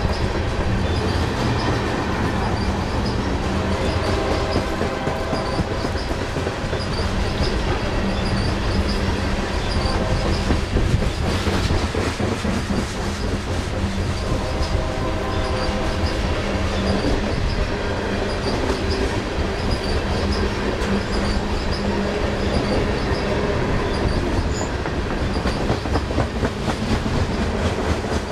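Loaded coal cars rolling past at steady speed: continuous rumble of steel wheels on rail with clickety-clack, and wheel squeal on the curve that comes and goes.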